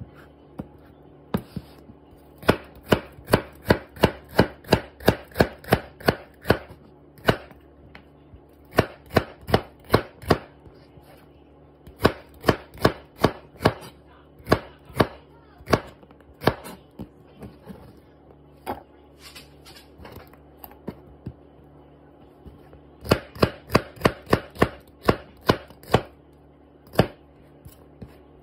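Chef's knife slicing a bitter melon on a plastic cutting board, each stroke a sharp knock of the blade on the board. The knocks come in quick runs of about three a second, with pauses of a second or more between runs.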